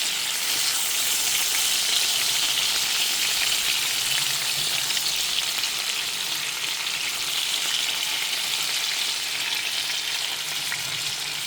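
Rupchanda (pomfret) fish frying in hot oil: a steady sizzle with many small crackles and spits throughout.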